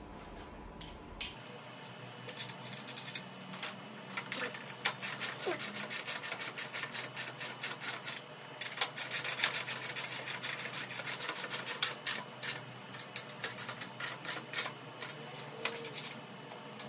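Socket ratchet wrench clicking in quick back-and-forth runs as the cart's axle nuts are tightened. The clicking starts about two seconds in and dies away shortly before the end.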